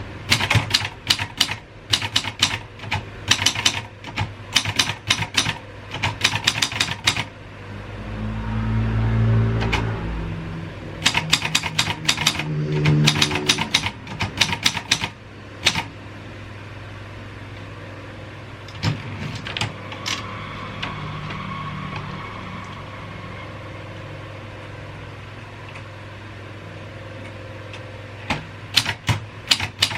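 Royal 202 manual typewriter keys striking in quick runs of typing, broken by pauses. A low rumble swells and fades between two of the runs, and the middle stretch holds only a few scattered keystrokes.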